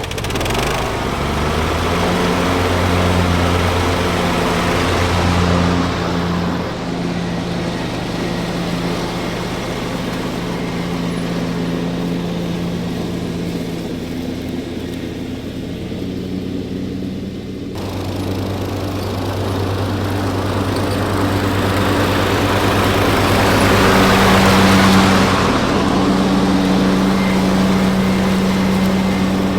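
Husqvarna YTH21K46 riding lawn mower engine running steadily. Its pitch and level shift abruptly about 7 and 18 seconds in, and it grows louder near the end.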